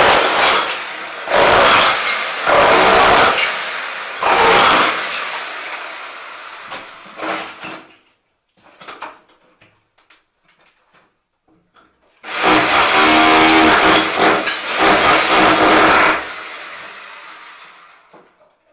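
Rotary hammer chiselling shower tiles off the wall in bursts: four short bursts in the first five seconds, then a longer burst of about four seconds starting about twelve seconds in.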